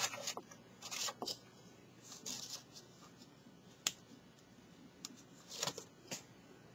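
Stiff cardstock being handled and folded by hand: faint, scattered rustles and crinkles of paper, with a few sharp ticks, the clearest about four seconds in.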